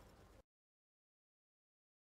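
Near silence: faint room tone that cuts off to total silence about half a second in.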